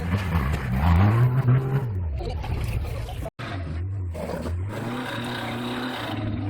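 Off-road vehicle engine revving up and dropping back during an off-road race. After an abrupt break, the engine runs on at steadier revs.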